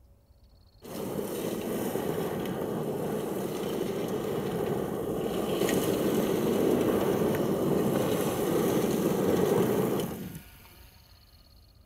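Tyres of an electric Mercedes G580 churning loose gravel as the vehicle spins on the spot in a G-turn, with stones spraying and ticking. The noise starts suddenly about a second in and cuts off near the end.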